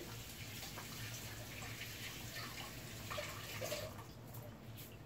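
Kitchen sink tap running as carrots are rinsed under it, the water stopping about four seconds in, followed by a couple of light clicks. A low steady hum runs underneath.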